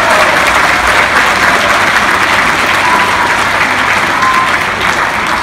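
Audience applauding loudly, a dense even clatter of many hands clapping, with a few voices calling out over it; the applause eases slightly toward the end.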